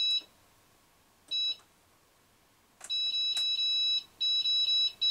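Control panel of a Northern Brewer Gigawort electric brew kettle beeping as its buttons are pressed to set the mash temperature: a single short beep, another about a second later, then from about three seconds in a fast string of beeps as the setting is stepped up.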